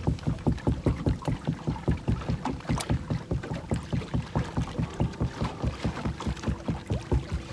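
Small waves slapping against a fishing boat's hull: a quick, even run of low knocks, about five a second.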